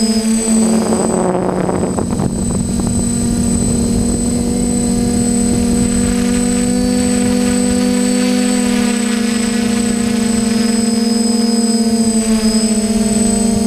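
DJI F550 hexacopter's electric motors and propellers in flight, heard up close from the airframe: a steady, loud buzzing whine that holds near one pitch, drifting slightly up and down as the throttle changes.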